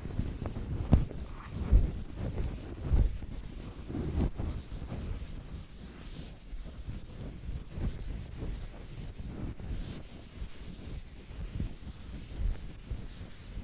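Blackboard duster wiping chalk off a chalkboard in repeated rubbing strokes. A few dull knocks come in the first few seconds, and the rubbing goes on more softly after that.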